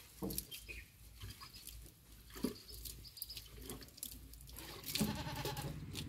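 Livestock bleating three times, with scattered light clicks in between.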